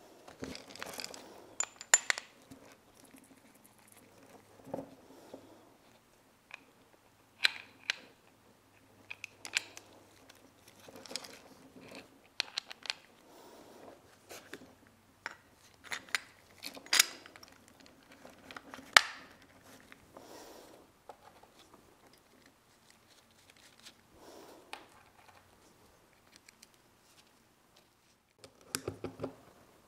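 Metal parts of a disassembled manual chain hoist being handled: scattered light clinks and clicks with quiet gaps, the sharpest at about 2, 17 and 19 seconds in.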